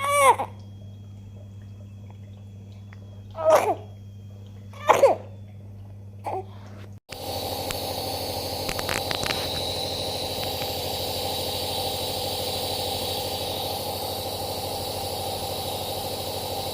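A newborn baby with a cough and cold gives a few short, loud coughs, each dropping in pitch, with a couple of seconds between them. About halfway through, the sound switches abruptly to a steady hum with faint tones and a few light clicks.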